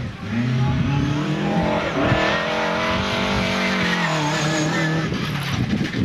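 Lada Zhiguli rally car's four-cylinder engine revving hard as the car is driven flat out. The pitch climbs, holds high, then drops about four seconds in.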